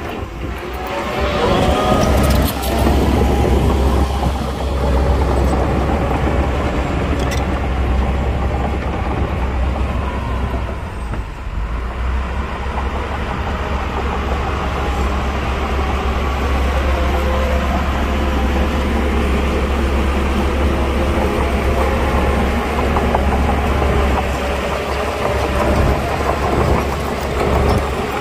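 Diesel engines of heavy earthmoving machines running, a loud deep rumble, with the engine pitch rising and falling at times.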